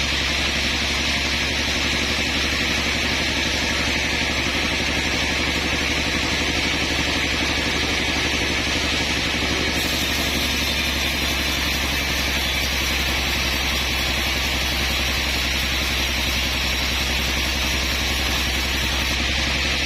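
Sawmill machinery running steadily: a constant engine-driven drone that does not rise, fall or break off.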